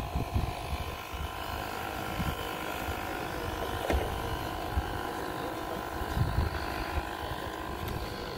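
Steady high whine of a model jet's turbine engine running, with wind rumbling on the microphone.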